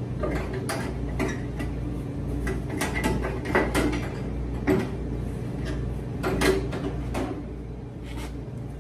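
Irregular clicks and knocks of tools and sheet-metal dryer parts being handled during reassembly, over a steady low hum.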